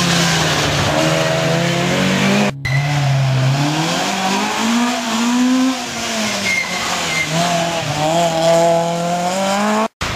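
Citroën C2 rally car's engine revving hard, its pitch climbing and dropping again and again through the gear changes, with two abrupt breaks in the sound.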